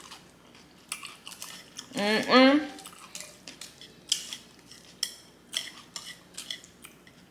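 Eating sounds: a utensil clicking and scraping against a plate or bowl, about ten short irregular clicks. About two seconds in there is a brief hum from the eater's voice.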